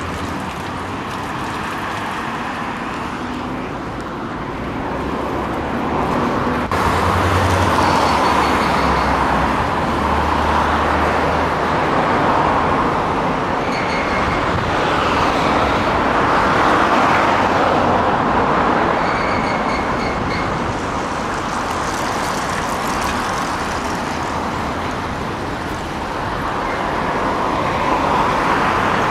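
Construction machinery and vehicle engines running steadily, growing louder about a quarter of the way in, with a few short runs of high beeps.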